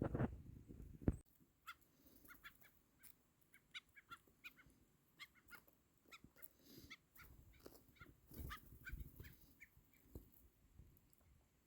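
Wild birds giving many short, quick call notes, faint and scattered, with a louder handling knock about a second in.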